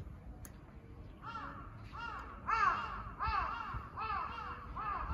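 A bird calling in a quick run of short, arching calls, two or three a second, starting about a second in, over a faint low background rumble.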